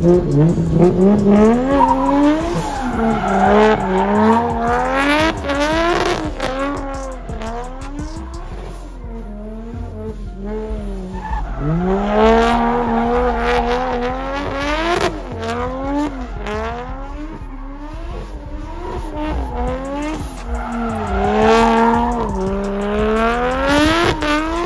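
Drift car's engine revving, its pitch climbing and dropping again and again as the throttle is worked, with tyres squealing as the car slides.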